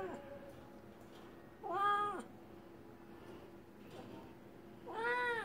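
Cat meowing twice, about three seconds apart, each meow rising then falling in pitch.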